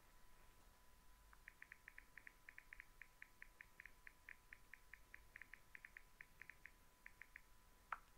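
Near silence: faint room tone with a steady faint high tone and a run of quick, faint, high chirps, then a single click near the end.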